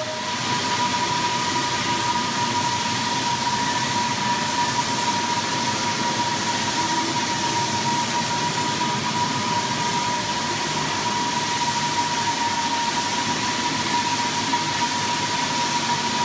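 Floor sanding machine running steadily on a parquet floor: an even mechanical noise with a steady high whine through it.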